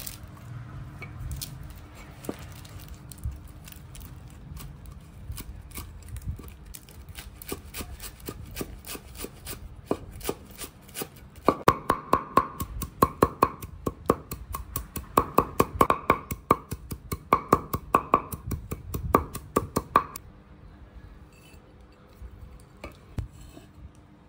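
Steel cleaver chopping leafy greens on a wooden chopping block: scattered strokes at first, then from about halfway fast runs of loud chopping with the blade ringing, which stop a few seconds before the end.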